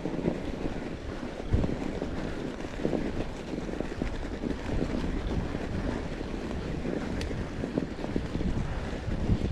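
Wind buffeting the microphone during a snow ride: a steady low rumble with a few short thumps.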